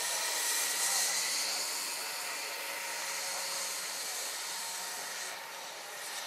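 Large electric scale model helicopter, a Vario SA-341/342 Gazelle with a 2.36 m rotor, flying overhead: a steady airy whoosh of rotor blades and electric drive, a little louder about a second in and easing slightly near the end.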